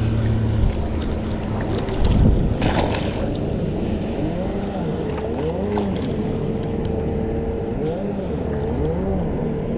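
A motorboat engine running, its pitch rising and falling again and again, with wind noise on the microphone and a low thump about two seconds in.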